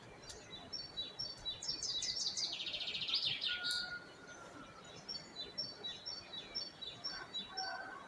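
Songbirds singing in a dawn chorus: series of short high chirps, with a fast buzzy trill from about two and a half seconds in and a held whistled note just after it.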